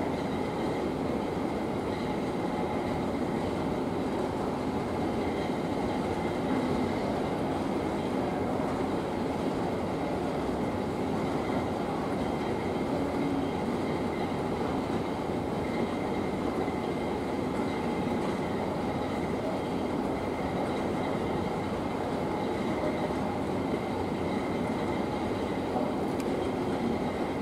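Train car running, heard from inside the cabin: a steady rumble with a faint high, even whine above it.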